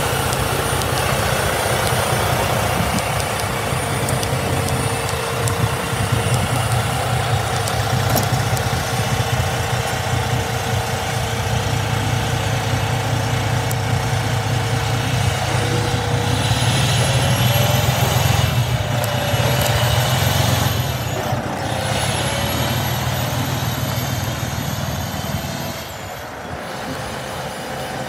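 2007 Freightliner Columbia truck tractor's diesel engine idling steadily, then revving as the truck pulls away. The note rises, drops back once at a gear change, rises again with a high whine climbing alongside, and falls away near the end as the truck moves off.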